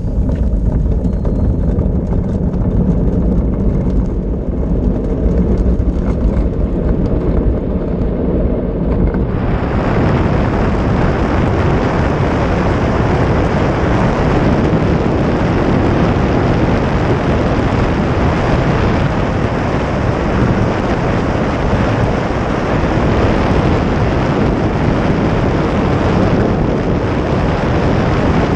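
Wind rushing over the onboard camera's microphone and wheels rumbling on asphalt as an engineless soapbox car coasts downhill. About nine seconds in, the deep rumble opens into a fuller, hissing rush that carries on steadily.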